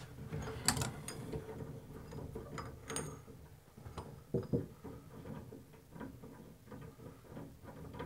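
Brass hot-water stem unit of a three-handle shower valve being unscrewed by hand from the valve body, its threads turning with faint metallic scraping and a few sharp clicks.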